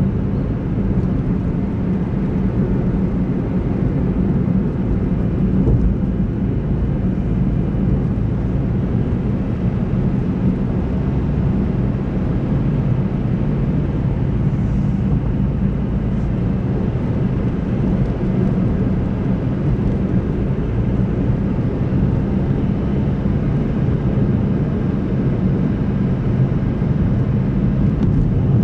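A car driving at a steady cruising speed: a low, even rumble of engine and tyres on the road that holds the same pitch and level throughout.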